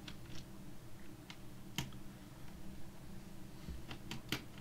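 Scattered light clicks and taps of hands and a small tool on an opened Dell Inspiron N7110 laptop's top case, as its ribbon-cable connectors and screws are worked loose. The loudest click comes a little under two seconds in, and three quick clicks follow near the end.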